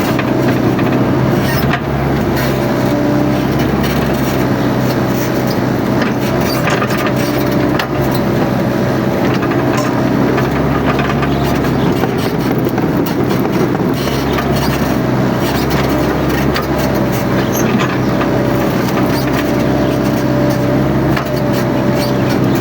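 Mini excavator's diesel engine running steadily under working load, with a wavering hydraulic whine over it and scattered short cracks.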